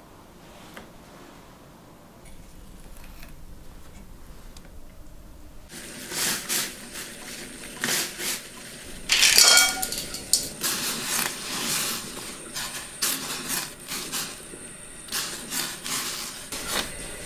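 Water boiling with shrimp in a metal saucepan, bubbling and popping, with clinks of a utensil against the pot. It starts about six seconds in, after a quieter stretch of faint clicks. A louder clatter with a short metallic ring comes about nine seconds in.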